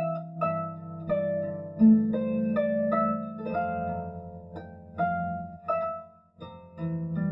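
Solo concert harp playing a slow, meditative melody: single plucked notes ring out and decay over low bass notes. The sound almost fades away about six seconds in, then a new chord is struck near the end.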